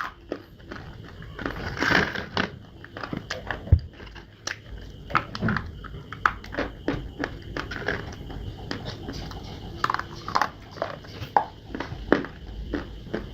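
A person biting and chewing hard, crunchy clay up close: a steady run of irregular sharp crunches and crackles, with no rhythm.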